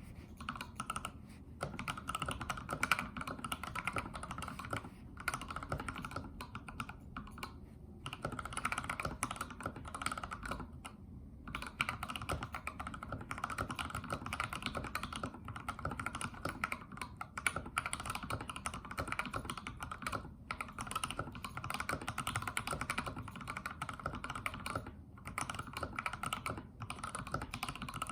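Continuous typing on a custom 60% mechanical keyboard: a DZ60 PCB in a bamboo case with PBT keycaps and lubed, filmed C3 Tangerine 62 g linear switches. Dense key strokes with a few short pauses, the longest about eleven seconds in.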